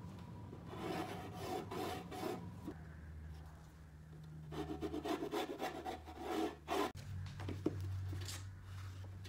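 Pencil scratching in quick repeated strokes on painter's tape over a metal ammo can, in two runs of strokes, with a few light clicks near the end. A low steady hum runs underneath.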